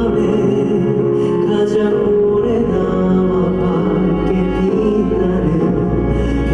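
Male vocalist singing live into a handheld microphone over a recorded instrumental accompaniment, holding long notes.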